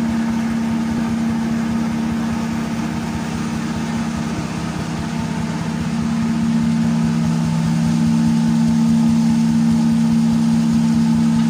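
Fiber cement board making machine running: a steady mechanical hum with a constant low drone, growing a little louder about halfway through.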